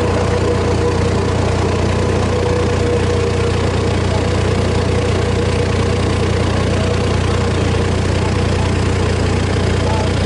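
Stone crusher running without load: a steady engine drone with a faint steady whine over it, no stones being struck.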